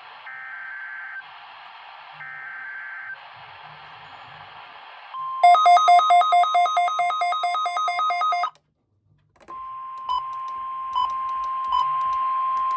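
Emergency Alert System test on weather radio: two harsh buzzing bursts of SAME header data, about a second each, over radio hiss. About five seconds in, the 1050 Hz alert tone starts with rapid, loud beeping over it, drops out for about a second, then comes back as one steady tone.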